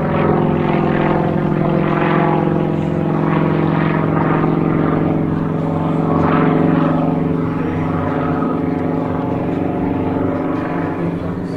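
Yakovlev Yak-55 aerobatic plane's nine-cylinder radial engine and propeller running overhead, steady in pitch, with the sound swelling and easing every couple of seconds as it flies its manoeuvres.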